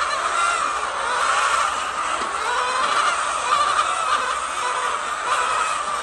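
A flock of chickens clucking and calling over one another in a steady, unbroken chorus of many overlapping short calls.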